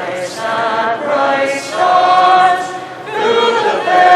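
Voices singing a national anthem together, with long held notes, at the start of a St Patrick's Day parade.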